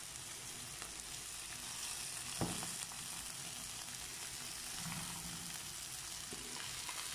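Sliced onions sizzling in olive oil and butter in a non-stick frying pan as raw sausages are laid in, a steady high hiss. A single sharp knock comes about two and a half seconds in.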